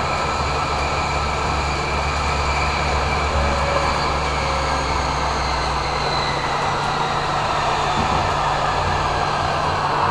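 Tram running on its track, heard from inside the front of the car: steady rolling noise of the wheels on the rails with a whine from the electric drive. A low hum drops away about two-thirds of the way through.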